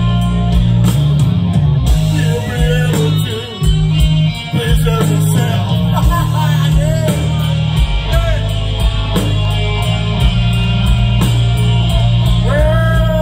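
Live country-rock band playing through the PA: electric guitar, bass guitar and drums, with a steady low bass line under bending lead lines.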